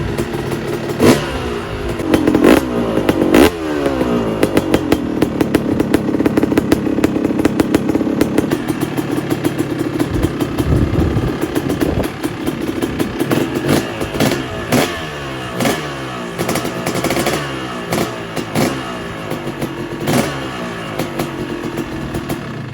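2007 Kawasaki KX250 two-stroke single-cylinder engine running on its first start after a full rebuild, during its first heat cycle. It is blipped up and down over and over through a Pro Circuit exhaust pipe.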